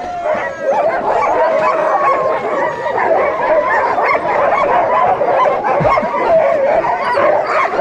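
A chorus of many sled dogs barking and yipping over one another without a break, mixed with drawn-out wavering cries. This is the din of dogs at the staking line excited to get going and to run.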